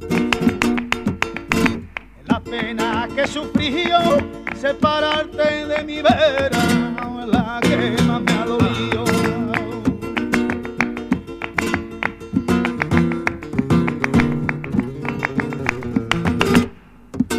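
Flamenco-style soundtrack music: acoustic guitar strummed in quick, dense strokes, with a short break near the end.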